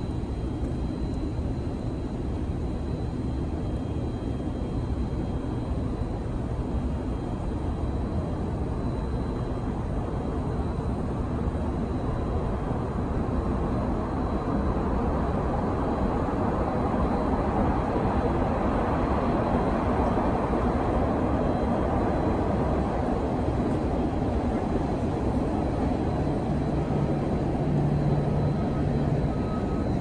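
Steady low rumble of city background noise that swells for several seconds around the middle as something passes.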